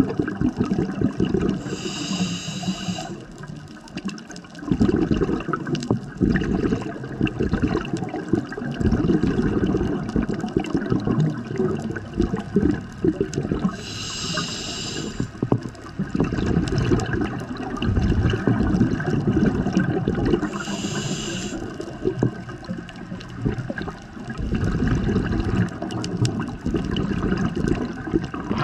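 Scuba diver breathing through a regulator underwater. A short hiss comes with each inhale, three times, and each is followed by several seconds of rumbling, bubbling exhaust bubbles.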